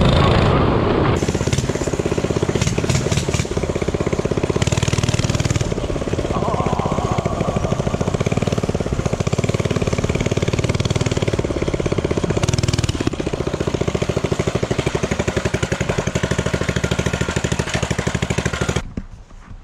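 Minibike's small engine running, with its speed and loudness rising and falling a little; the sound cuts off abruptly near the end.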